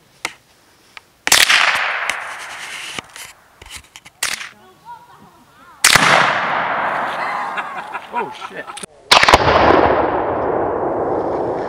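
Three loud blasts of a Tannerite exploding target set off by a rifle shot, about a second, six seconds and nine seconds in. Each is a sharp crack followed by a long rumbling echo that dies away over several seconds. The second and third are the same detonation played again in replay.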